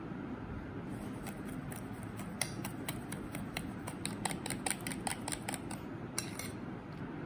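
Metal spoon clinking and scraping against a glass mixing bowl while stirring sugar into beaten eggs, in quick clicks about four a second that stop shortly before the end.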